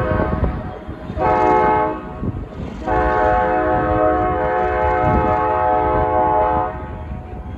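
Train horn sounding a chord: a blast that ends just after the start, a short blast about a second in, then a long blast of nearly four seconds, over the low rumble of the approaching train. The short-then-long pattern is the end of the standard grade-crossing horn signal.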